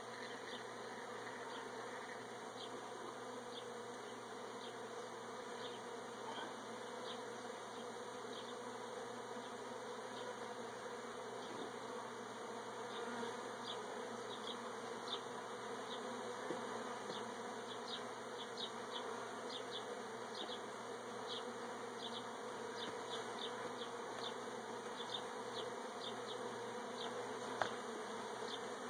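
Many honeybees buzzing steadily around an opened hive, with short high ticks that come more often in the second half.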